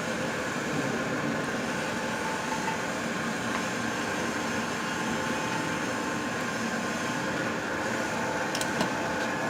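A machine running steadily with an even hum made of several steady tones over a noisy hiss, and two faint clicks near the end.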